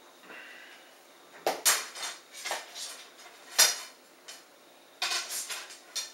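Arrow shafts being handled on a wooden table, clicking and clacking against each other and the tabletop: a series of sharp light knocks, the loudest about three and a half seconds in, with a quick run of clicks near the end.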